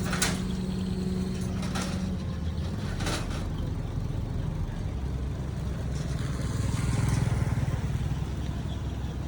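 Excavator engine running steadily, with a few sharp knocks in the first three seconds.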